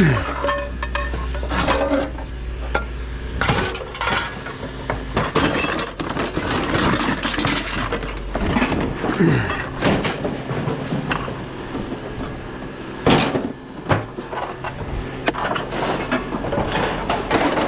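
Scrap metal pieces clinking and clattering, with many short knocks and rattles, as items are handled and taken apart. A low steady hum sits under the first few seconds.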